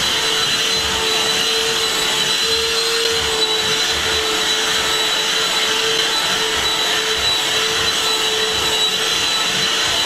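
Black & Decker lithium-ion cordless handheld vacuum running on a rug, a steady motor whine over the rush of air.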